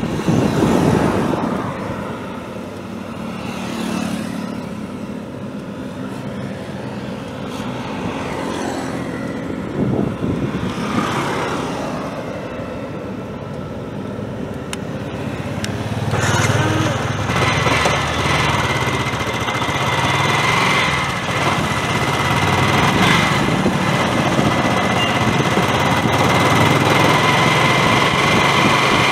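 Yamaha R15 v2 motorcycle's single-cylinder engine running while the bike moves off slowly. About sixteen seconds in the sound grows louder, with a deeper engine note and a steady high whine, as the bike picks up speed.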